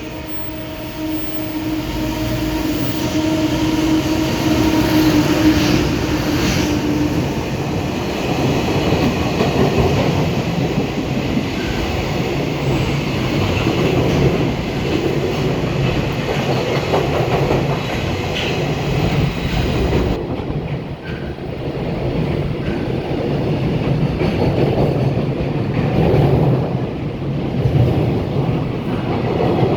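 A JR Freight EH200 electric locomotive passes at speed with a steady hum for the first several seconds. A long string of container flat wagons follows, rolling by with continuous wheel rumble and clickety-clack over the rail joints.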